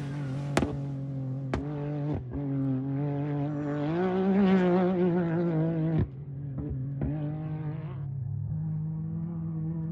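Off-road race vehicle engine running at a steady pitch, rising briefly about four seconds in and settling again, with several sharp clicks along the way.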